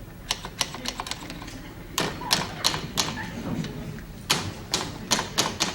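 Sharp knocks and bangs on a coin-operated coffee vending machine as it is struck and jostled, coming in irregular clusters with the densest run near the end.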